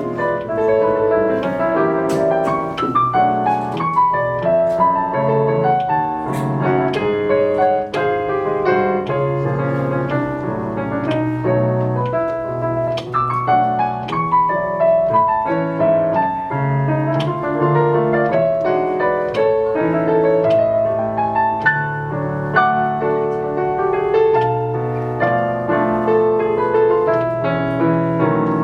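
Solo piano playing a waltz: a melody in the upper notes over sustained low bass notes.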